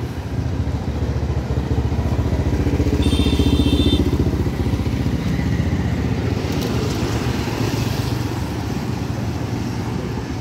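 Motorcycle engines running steadily, a close, pulsing engine drone. A brief high-pitched beep about three seconds in, lasting about a second.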